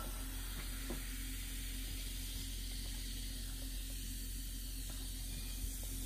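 Baking-soda egg fizzing steadily in vinegar, a soft hiss with a few faint ticks.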